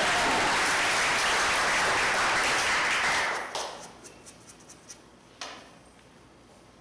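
Audience applauding. The applause dies away about three and a half seconds in to a few last scattered claps, followed by one sharp click.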